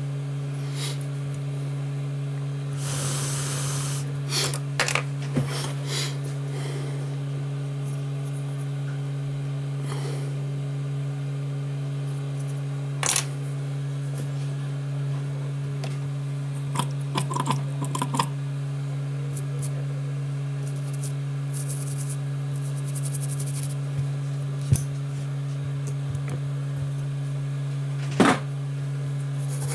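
A steady low hum with scattered light clicks and taps as an iPhone 5s logic board is handled and set down on the work mat, plus a short hiss about three seconds in.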